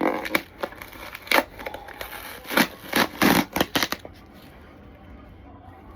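A parcel's packaging being handled and pulled open: short bursts of rustling, crinkling and tearing over the first four seconds, then only faint handling.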